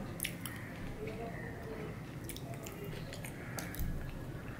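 Close-up wet eating sounds: chewing and lip-smacking on fried rice eaten by hand, with many small clicks of the mouth, and fingers licked near the end.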